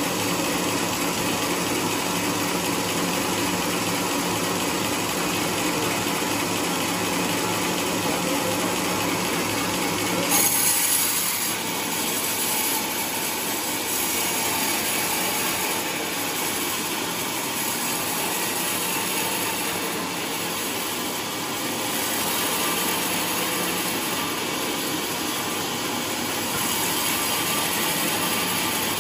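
Large log band saw running and cutting lengthwise through a trembesi (rain tree) log on a rail carriage, a steady sawing noise. There is a brief louder rasp about ten seconds in.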